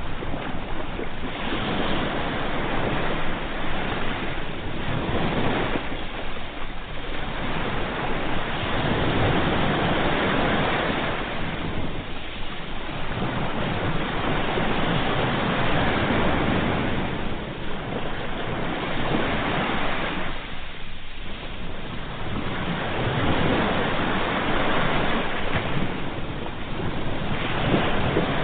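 Sea waves breaking and washing on a shore, the surf swelling and easing in slow surges with a lull every few seconds.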